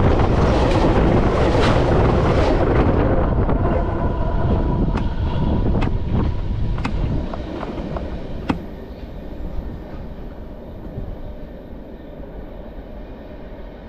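Freight train's last tank car rolling over the track, heard from between the rails: a loud rumble of steel wheels on rail that fades away over several seconds as the train moves off. A few sharp metallic clicks come from the track between about five and nine seconds in.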